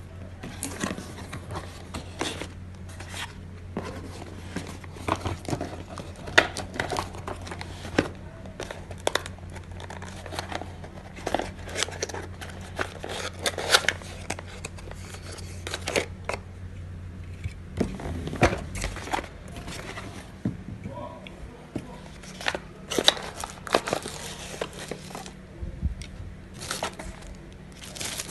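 Cardboard packaging being handled during an unboxing: box flaps and folded cardboard inserts rubbing, tapping and clicking, with paper or plastic wrapping crinkling. Many short, irregular rustles and clicks.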